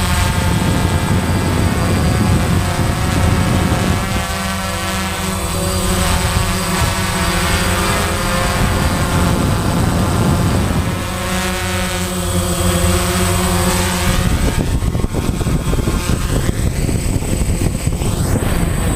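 Quadcopter's electric motors and propellers whining, heard up close from the onboard camera; the pitch shifts with throttle a few times, then rises and falls in the last few seconds as the craft comes down to the road.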